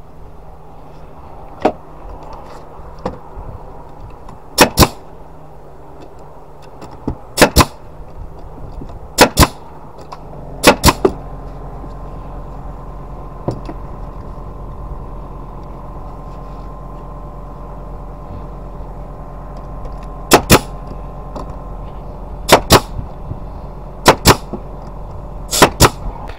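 Pneumatic nail gun driving nails into pressure-treated wood boards, eight shots, each a sharp double crack of the nail firing and the driver returning. From about ten seconds in, a steady motor hum runs underneath.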